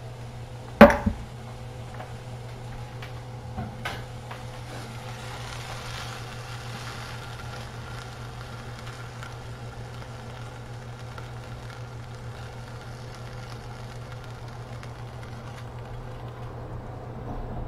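A sharp clack about a second in, a lighter knock right after it and two small knocks near four seconds: a skillet and spatula clattering as cooked chicken is scraped out of the pan onto a plate. A steady low hum runs underneath.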